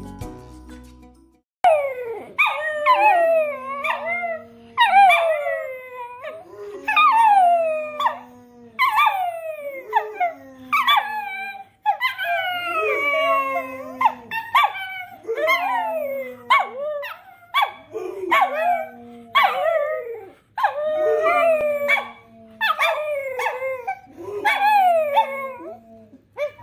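Cocker spaniel howling over and over. Each short howl falls in pitch, and they come one every second or two.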